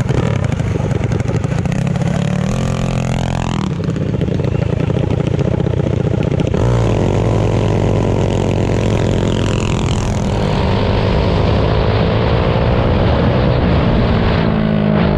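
Mini bike engine at full throttle, accelerating hard from a stop. Its pitch climbs steeply over the first few seconds, drops to a lower, steady note about six and a half seconds in, then slowly rises again.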